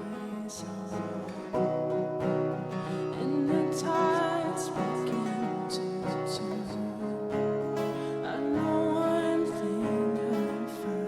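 Live band playing a slow worship song: strummed acoustic guitar over keys, bass and drums, with a singer's voice wavering in vibrato on held notes.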